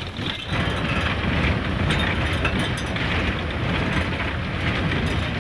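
Engine and road noise heard from inside a moving vehicle's cabin, a steady dense rumble that rises a step about half a second in, with scattered short rattles from the body over the rough, potholed road.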